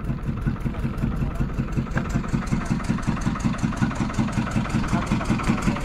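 Wooden riverboat's engine running underway, a steady rapid pulsing beat of several strokes a second.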